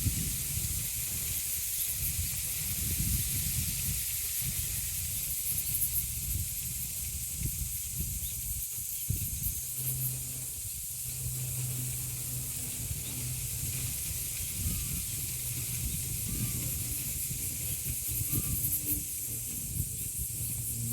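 Cicadas singing as a steady high hiss, with wind buffeting the microphone in uneven low gusts. A faint low steady hum comes in about halfway through.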